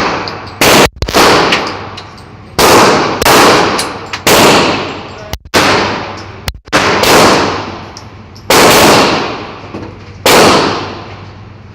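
Pistol firing about a dozen shots in uneven strings, some pairs half a second apart and some gaps of a second or more, each shot trailing off in a long echo.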